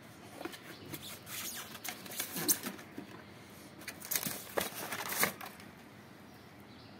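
Handling noise of unpacking: rustling, scraping and sharp clicks of a cardboard box, foam packing and a bundle of plastic-insulated wires being moved, in irregular clusters over the first five seconds or so.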